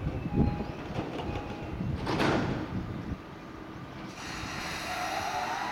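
JR East E233-5000 series electric commuter train closing its doors, with a short rush of noise about two seconds in. From about four seconds in it starts to pull away, and its traction motors and inverter set up a whine that rises in pitch.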